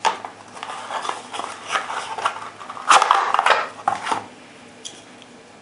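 Plastic flashlight chargers and their packaging being handled: a run of clicks, knocks and rustling, loudest about three seconds in, then one light click before it stops.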